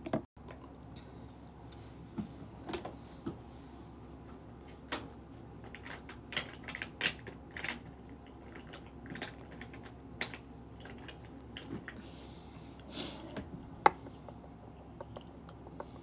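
Scattered light clicks and taps at an uneven pace, like typing, close to the microphone. They come thicker about six to eight seconds in, and a short rustle follows near the end.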